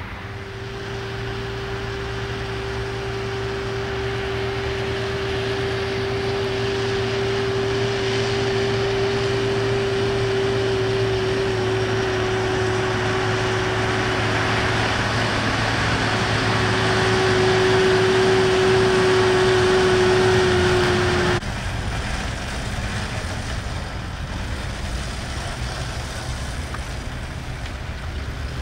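New Holland tractors pulling Bergmann manure spreaders as they spread, engine running under load with a steady whine over it. The sound grows gradually louder, then changes abruptly about 21 seconds in to a closer tractor and spreader without the whine.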